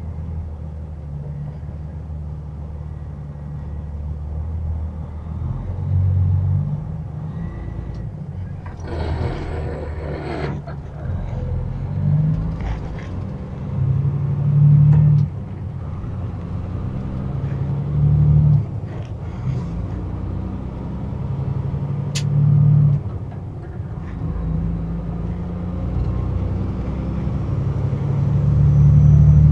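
Semi-truck engine and road noise heard inside the cab while driving: a steady low drone that swells louder every few seconds. A brief hiss comes about nine seconds in.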